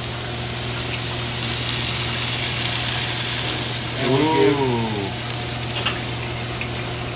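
Steady hum and hiss of a restaurant kitchen's lit gas range, with a tomato sauce sizzling in the pan; the hiss swells for a couple of seconds partway through. About four seconds in there is a short voice sound that rises and then falls in pitch.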